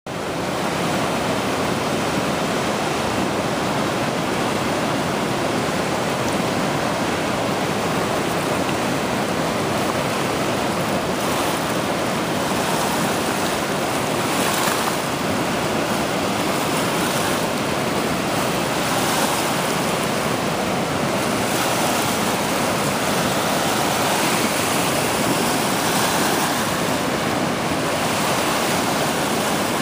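The Red Deer River in flood, its brown, swollen water rushing steadily over a rock ledge in a continuous roar of whitewater.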